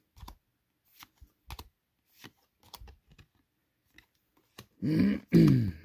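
Pokémon trading cards being handled: soft, scattered clicks and taps as cards are flipped and slid in the hand. About five seconds in, two short, loud voice sounds fall in pitch.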